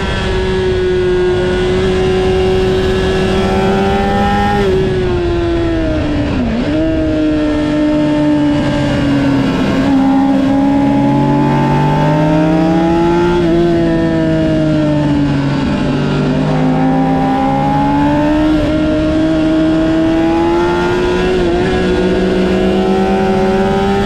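Honda CBR600RR inline-four engine at high revs under hard riding on track. The pitch holds high, drops sharply and recovers about six seconds in, runs lower through the middle with small dips, and climbs steadily again near the end as the bike accelerates.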